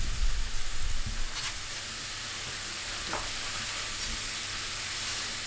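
Chopped onion, garlic, green chillies and ginger sizzling in hot desi ghee in a frying pan, stirred with a wooden spatula, with some low knocking and scraping in the first second or so and a steady sizzle after. The onions are being browned for a tadka.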